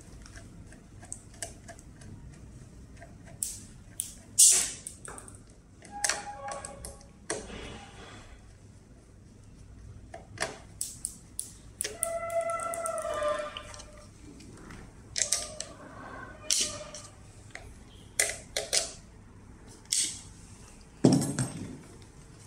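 Hand screwdriver loosening the rear mudguard screws on a Kugoo Kirin Mini 2 electric scooter: scattered sharp metallic clicks and scrapes of the tip, screws and plastic. A heavier knock comes near the end.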